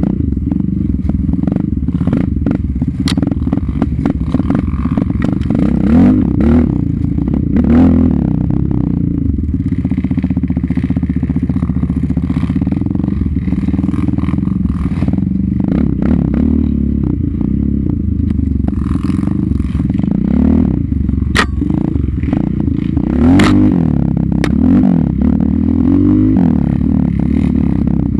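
Sport ATV engine running on and off the throttle, its pitch rising and falling, heard close from a mount on the machine. Rattling, knocking and scraping as the quad bounces over rough ground and pushes through tall grass and brush, with a few sharp clicks.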